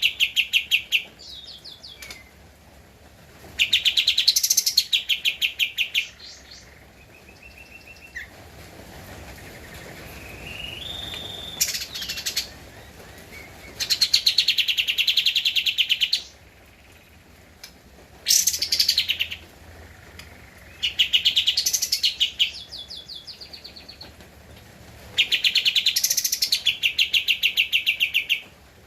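A kapas tembak bulbul singing in repeated bursts of fast, rattling notes, each burst about two seconds long, with quieter gaps between them.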